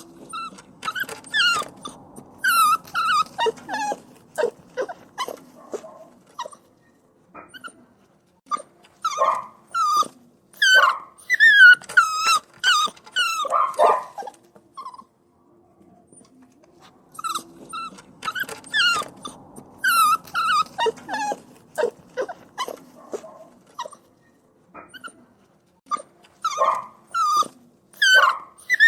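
Puppy whining and crying: a long run of short, high-pitched whimpers and yelps, many falling in pitch, coming in clusters with brief pauses between them.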